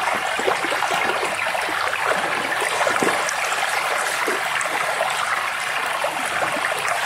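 Swollen, muddy creek running steadily over its bed, with scattered splashes in the first few seconds as two basset hounds wade through the current and climb out onto the bank.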